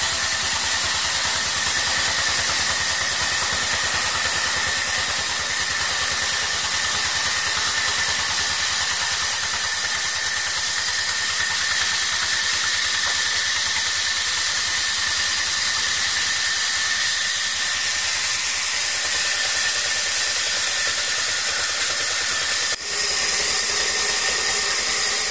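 Belt-driven band sawmill running without cutting: a loud, steady high-pitched whine over a hiss, dropping out for an instant near the end.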